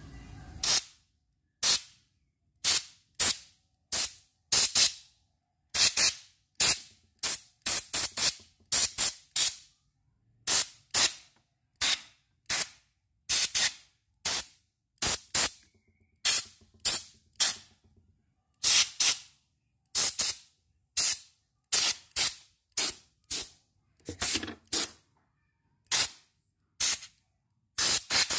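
Compressed-air blow gun fired in many short bursts, about one a second, each a sharp hiss, blowing dust out of an embroidery machine's open mechanism and circuit board during cleaning.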